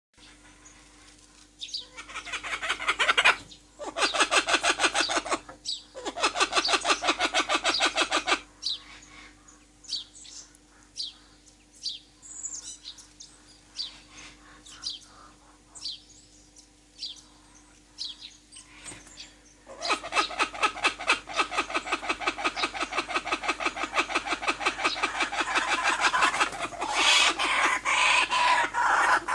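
Forest birds calling: three fast, rattling trills in the first third, then scattered short, high chirps, and from about two-thirds of the way in a long, continuous rapid trill.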